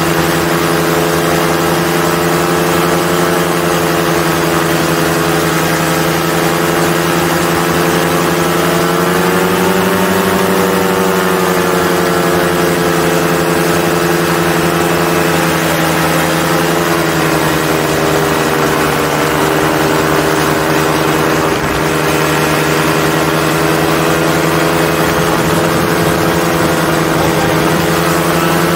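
Paramotor trike's engine and propeller running steadily in flight; the pitch rises a little about nine seconds in and eases back down around seventeen seconds.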